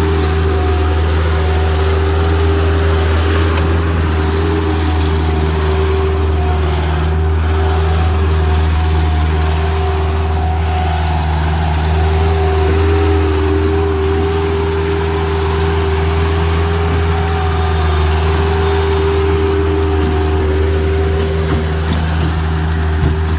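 Bobcat 753 skid steer's diesel engine running steadily, with a constant whine over the low engine note.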